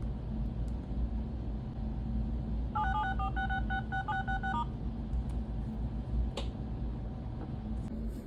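Samsung phone's dial-pad touch tones: a quick run of about ten short two-note beeps as keys are tapped, over a steady low hum. There is a single click about six seconds in.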